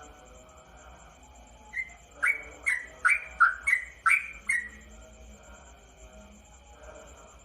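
Sooty-headed bulbul (trucukan) singing a quick run of about eight loud, sharp notes that starts about two seconds in and lasts about three seconds.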